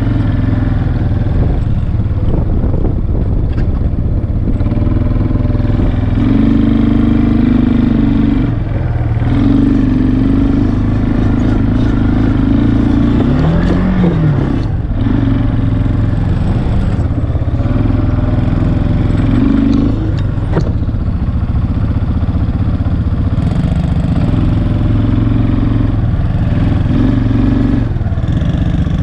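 ATV engine running while riding across rough ground, its note stepping up and down as the throttle is opened and eased off, with a quick rise and fall in pitch about fourteen seconds in.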